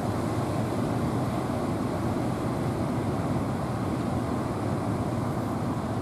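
Steady noise of rough surf and wind on the microphone, mixed with the engines of outrigger fishing boats running among the waves; it holds an even level throughout.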